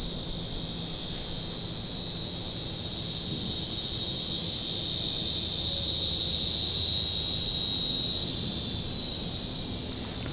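A chorus of insects buzzing, high and steady, swelling louder through the middle and easing off near the end.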